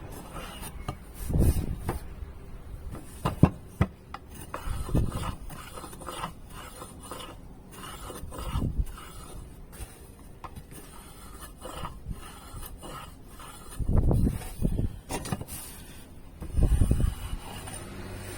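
Wooden parts being handled and rubbed against each other, with irregular knocks and a few sharp clicks.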